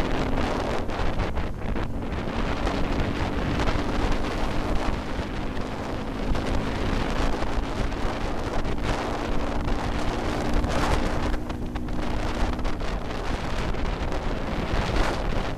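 Wind buffeting the microphone on a moving motorcycle, with the engine's steady hum underneath that fades near the end.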